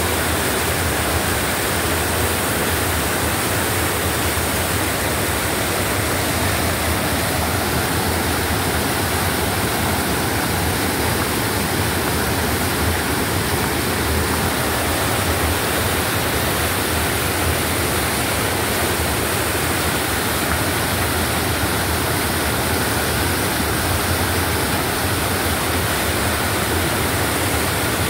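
Waterfall cascading down a rock chute into churning whitewater: a loud, steady rush of water.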